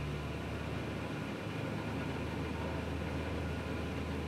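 A 1994 Subaru Sambar's small 658 cc four-cylinder engine running at a slightly raised idle with a steady low hum, heard from inside the cab. The air-conditioning blower pushes air through the dash vents with an even hiss.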